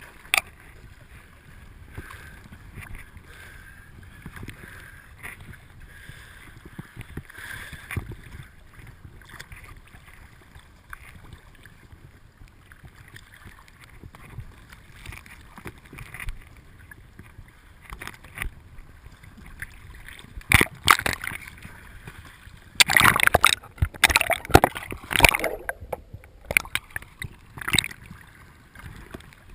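Small rowboat on the water: steady water noise with scattered sharp knocks and splashes, and a burst of louder ones a little over twenty seconds in.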